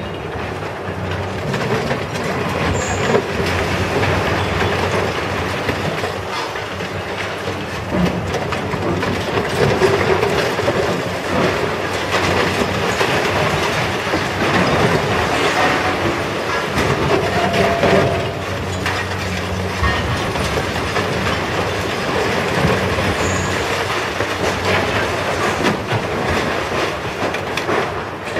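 High-reach demolition excavator's hydraulic crusher jaws tearing into a concrete and steel building, with continuous clattering and grinding of breaking concrete and falling rubble and a few louder surges of crashing debris.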